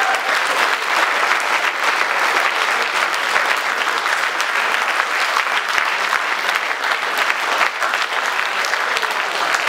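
Sustained applause from a hall audience, many hands clapping steadily without a break.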